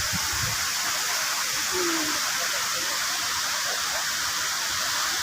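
Strong windstorm blowing: a steady rushing hiss with no gusting thumps on the microphone.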